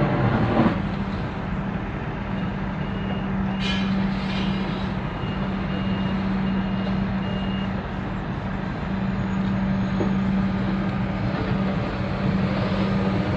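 Comeng electric train standing at the platform with a steady hum. A run of short high beeps comes a few seconds in, and near the end the train starts off with a rising motor whine.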